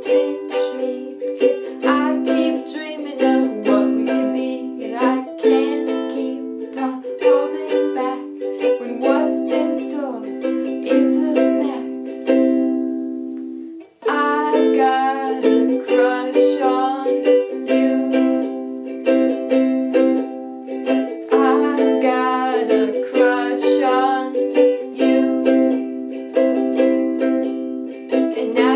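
Ukulele strummed in steady chords, with a young woman singing over it at times; the strumming stops for a moment about halfway through, then starts again.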